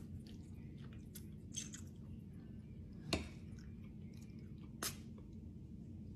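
Close mouth sounds of someone eating ramen noodles in broth: quiet chewing with a few short wet smacks and slurps as noodles are sucked in, the sharpest about three seconds in.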